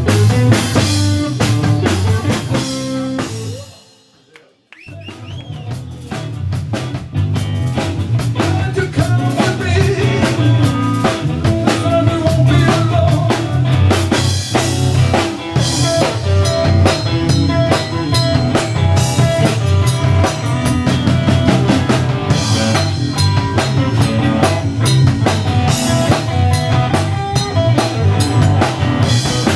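Live blues-rock band playing an instrumental passage on drum kit and electric guitar. The music cuts out almost to silence about four seconds in, then starts up again.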